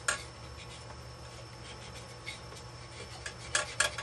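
A cloth rag rubbing and scuffing against the engine's metal carburetor mounting flange, with a few short knocks and clicks, most of them in a cluster near the end. This is the gasket seat being wiped clean with carb cleaner.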